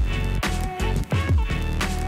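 Music with a steady beat and deep bass notes that slide down in pitch.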